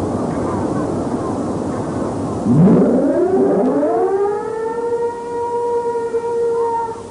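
A siren winding up from a low note to a steady high pitch about two and a half seconds in. It holds that note for several seconds and stops near the end, over a steady rushing background noise.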